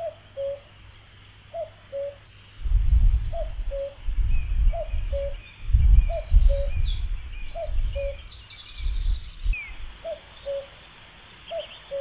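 Common cuckoo calling its two-note falling 'cuck-oo', eight times, about once every one and a half seconds. Bursts of low rumble come through the middle, with faint high twittering of small birds.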